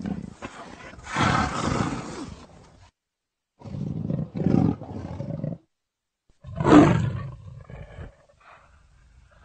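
Leopard calling in four separate bursts of one to two seconds each, with silent gaps between them; the loudest burst comes about seven seconds in.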